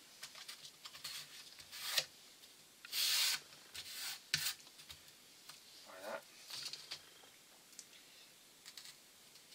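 Hands rubbing, pressing and sliding on thin balsa fuselage sides as a side is seated onto its formers: scattered short scrapes and light taps, the loudest a brief rasping hiss about three seconds in.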